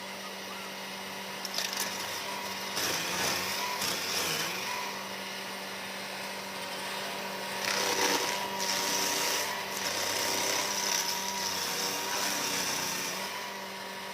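Stump grinder running steadily while its cutter wheel grinds into wood, with louder surges of grinding about three seconds and eight seconds in.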